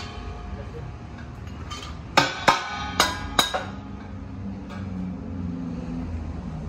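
Hammer striking a metal cap being fitted onto the top of a polished exhaust pipe: a quick run of about four ringing metallic blows some two seconds in, over a steady low hum.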